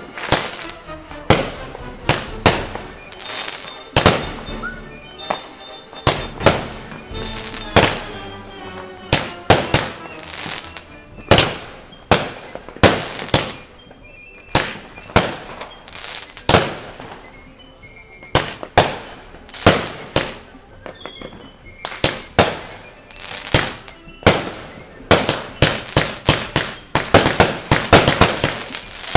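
Brothers "Current Events" 30-shot firework cake firing shot after shot, each shot a sharp bang about once or twice a second. The shots come faster near the end.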